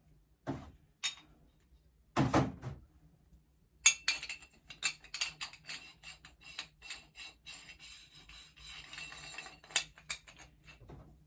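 Threaded iron pipe fittings clinking and rattling as they are handled and fitted together by hand. There is a heavier knock about two seconds in, then a run of quick small clicks through the rest.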